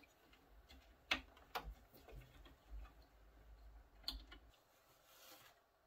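A few clicks and knocks from a cable plug being worked back into its socket on a graphics card inside an open desktop PC case, as it is reseated. The loudest click comes about a second in and another about four seconds in, with soft rubbing near the end.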